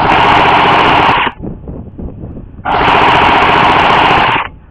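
Airsoft electric gun firing two bursts of full-auto, a fast mechanical rattle that starts and stops abruptly. The first burst lasts just over a second; the second, about a second and a half later, lasts nearly two seconds.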